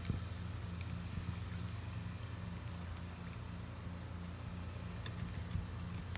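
Steady low motor hum with a faint regular pulse two or three times a second, under a thin, high, steady tone.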